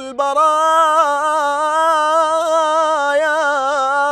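Solo male voice singing an unaccompanied mawwal in the Iraqi awshar mode, drawing the word "al-baraya" out into one long ornamented note with a quivering vibrato.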